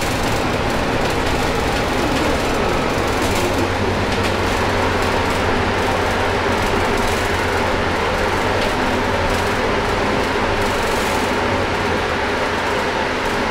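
Cabin noise of a Volvo B9TL double-decker bus under way: the steady drone of its six-cylinder diesel engine mixed with road and body noise.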